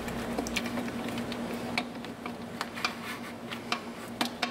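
Scattered light clicks and taps as the air intake duct's hose clamp is tightened with a flat blade screwdriver and the duct is handled, over a faint steady hum.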